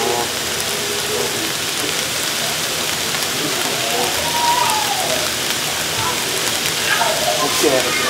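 Water at a rolling boil in a large pot, bubbling steadily. A voice is heard faintly in the middle and again near the end.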